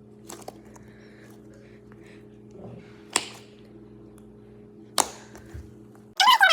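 A frozen cheese squishy toy being squeezed, giving three short, sharp crunches a second or two apart. Music starts just before the end.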